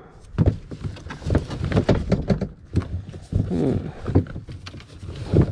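Shoes and the plastic storage tote being rummaged through by hand: a busy run of irregular knocks, clunks and scuffs as the shoes bump against each other and the tote's sides.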